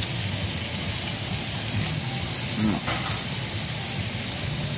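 Pork belly sizzling steadily on a tabletop barbecue grill, over the constant low hum of the overhead ventilation fan drawing the smoke away.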